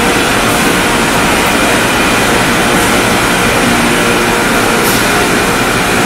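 Ceramic tile production line running: the belt-and-pulley drive and rollers of the conveyor, with a loud, steady mechanical noise and a faint hum.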